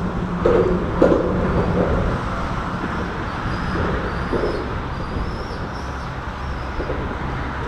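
Steady low rumble of road traffic crossing the concrete bridge overhead, mixed with wind noise, with a few soft knocks.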